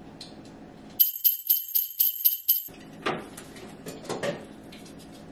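Jingle bells shaken in a quick run of about eight strokes lasting under two seconds, a bright high ringing added as a sound effect: the room sound drops out completely while it plays. A few soft rustles and knocks follow.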